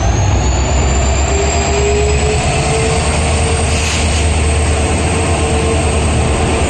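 Passenger train rolling into a station: a steady, loud, heavy rumble, with a thin high whine that slowly rises in pitch.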